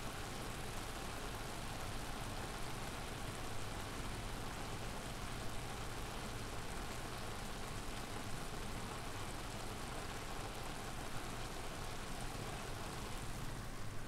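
Onions sautéing in butter in a pan on a gas hob: a steady sizzling hiss with small scattered pops, over a low steady rumble.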